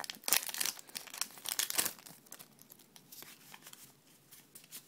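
Foil wrapper of a Pokémon Neo Destiny booster pack being torn open and crinkled, loudest in the first two seconds. After that come quieter rustles and small flicks as the cards are pulled out and fanned.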